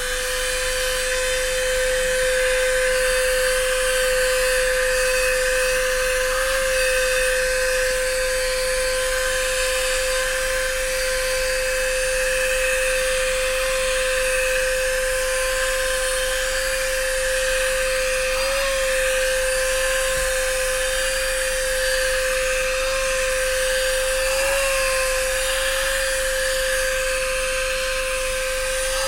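GoMechanic Neutron 4500 12 V handheld car vacuum cleaner running, its motor reaching full speed at the start and then holding a steady high whine with a rush of air. The pitch wavers briefly a few times.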